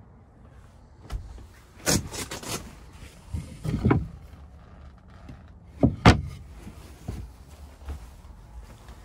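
Wooden camper cabinet doors being opened and shut by hand: a string of knocks and bumps, the sharpest about six seconds in.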